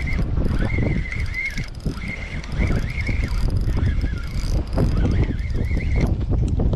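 Wind buffeting the microphone in gusts, with a thin, wavering high-pitched whine coming and going through it.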